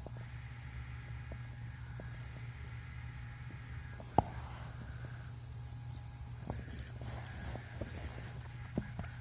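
Small bell on a kitten's collar jingling in short, irregular bursts as the kitten moves about, with a few light knocks and one sharper knock about four seconds in.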